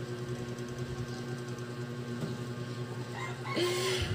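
Steady low electric hum. About three seconds in, a loud animal call with a short rise and then a held note.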